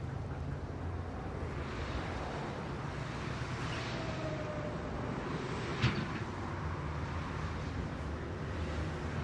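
Steady low hum of night street ambience with distant traffic, and one short sharp click a little past halfway.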